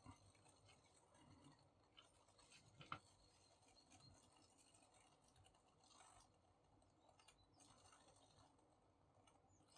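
Near silence, with a few faint small clicks and taps; one is slightly louder about three seconds in.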